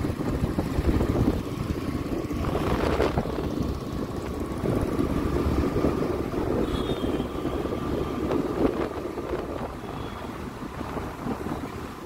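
Motor vehicle running, a steady rumbling noise with no clear engine note, with some wind on the microphone.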